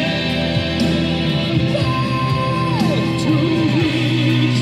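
Music: a male singer holds one long high note that glides down about halfway through, over rock-band backing with guitar.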